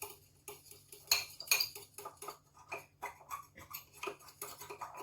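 Spoon mixing a wet mixture in a bowl, clinking against the bowl about four or five times a second.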